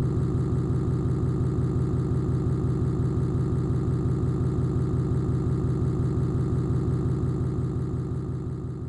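An engine idling steadily with a fast, even pulse and a strong low hum, fading away near the end.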